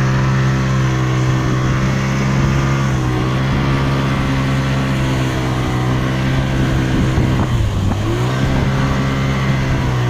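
Motorboat engine running at a steady speed, its pitch dipping briefly about three quarters of the way through before picking back up.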